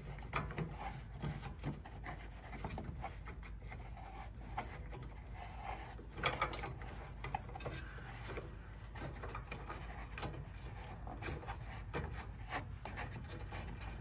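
Plastic battery cap on a Mr. Heater Big Buddy propane heater's electronic igniter being turned by hand to close it over a new AAA battery: scratchy rubbing of fingers and plastic with scattered small clicks.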